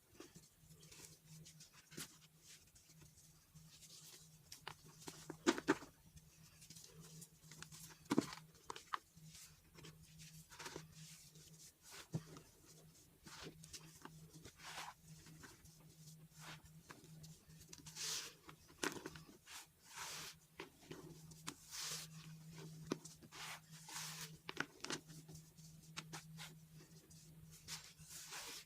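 Soft pressed baking soda being crushed and crumbled by hand: a quiet, irregular run of small crunches and dusty crumbling, with a few sharper cracks in the first third.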